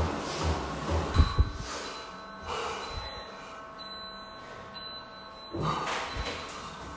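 A man breathing hard through his mouth during kneeling push-ups, blowing out a string of forceful breaths, with two sharp low thumps a little over a second in.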